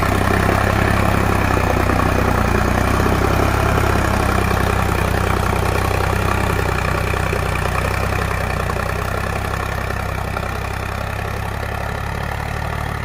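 Sonalika DI 745 III tractor's three-cylinder diesel engine running steadily under load, pulling a disc plough through the soil in second gear. The sound grows gradually fainter as the tractor moves away.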